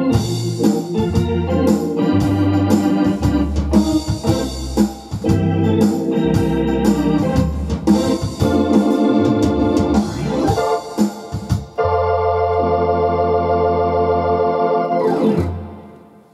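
Hammond M44 Exceed two-manual organ playing an easy-listening fox-trot over a steady percussion beat. About twelve seconds in it settles on a long held final chord over a bass note, which ends in a quick glide and dies away near the end.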